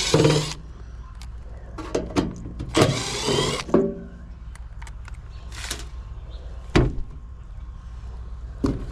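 Cordless impact driver (Milwaukee M12) running in short bursts on the screws of a gas pack's blower assembly: once at the start, again about three seconds in, and briefly near six seconds. Scattered clicks and knocks of metal parts being handled come between the bursts.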